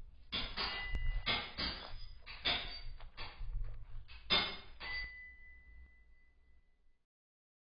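Logo sound effect: a quick series of glassy, clinking knocks, about ten in five seconds, as the lettered blocks of the logo drop into place, then a single high ringing tone that fades away about seven seconds in.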